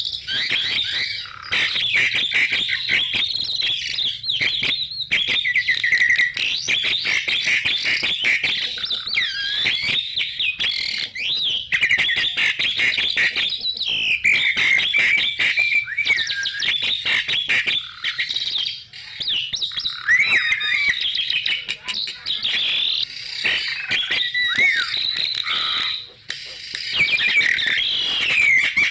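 Javan myna and pied starling singing together: a dense, almost unbroken run of chattering, whistles and sliding notes, with a short pause near the end.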